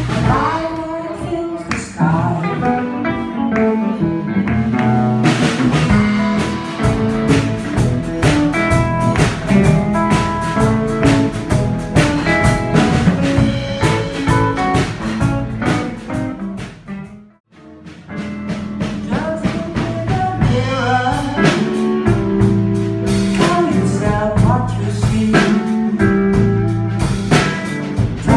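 Live blues band playing, with a woman singing lead over electric guitars, bass and drum kit. The music cuts out for a moment about two-thirds of the way through, then carries on.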